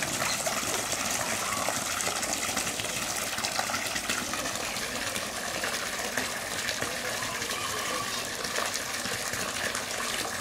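Water gushing steadily from a pipe outlet into a pool.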